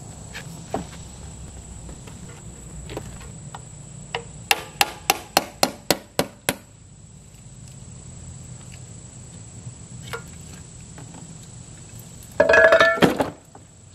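Metal hand tool tapping on a steel differential housing: about eight quick sharp taps a third of the way in. Near the end comes a louder metallic clatter with a ringing tone, lasting about a second.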